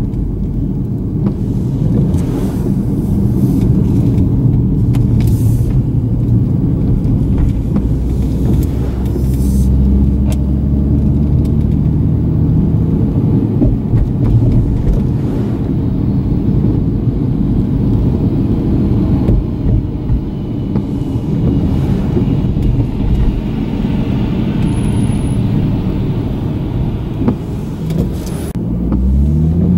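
Nissan V36 Skyline 250GT's 2.5-litre VQ25 V6 engine and tyre noise, heard from inside the cabin while driving in traffic. The low, steady hum carries an engine note that rises about eight seconds in and again near the end as the car speeds up.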